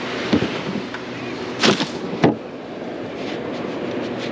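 Steady wind and surf noise on the microphone, broken by a few sharp knocks, the loudest two coming close together about two seconds in.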